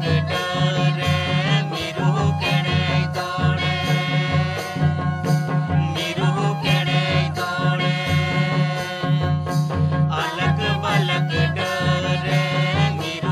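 Santali folk song: voices singing over a steady drum beat with instrumental accompaniment.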